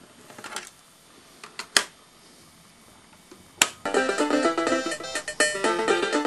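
A few plastic clicks and a sharp snap as the hinged cassette door of a Sharp RD428UA dictation cassette recorder is pushed shut, the loudest snap a little under two seconds in. Instrumental music starts about four seconds in.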